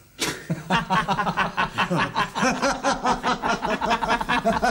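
Two men laughing heartily together, a fast run of ha-ha pulses starting just after a short pause.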